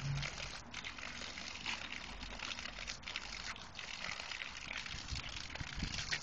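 A jet of water spraying onto the grass with a steady hiss and splatter, breaking against the mouth of a small dog that bites and laps at it, with a few soft knocks near the end.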